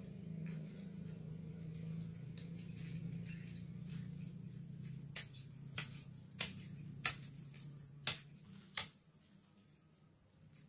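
Six sharp chops of a blade cutting through the stalks of a salak palm's fruit bunch, starting about halfway through, roughly one every second or less. A low steady hum fades away before them.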